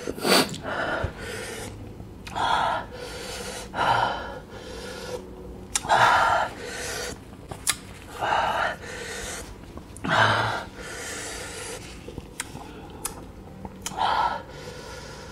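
A man gasping hard through his open mouth, one sharp breath every second or two, from the burn of an extremely hot chili chip.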